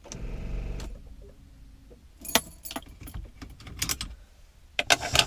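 Infiniti with a dead battery failing to start: a buzzing chatter for about a second as the key is turned, then a series of sharp clicks and a jangle of keys in the ignition, with no cranking.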